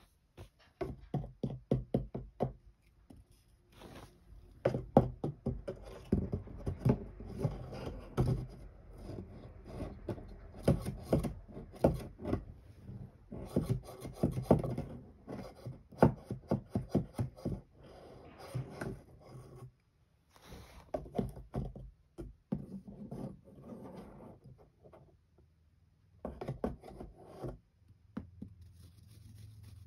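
Quick runs of scratching, scraping and knocks on a cardboard cat house, as a stick toy is pushed through its window openings and a cat inside paws at it.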